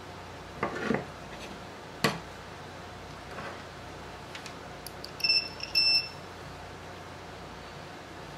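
Two short, high beeps from a digital multimeter, about half a second apart, as the probes are readied to test a blown fuse. Before them come handling rustle and a sharp click of a tool set down on the bench about two seconds in.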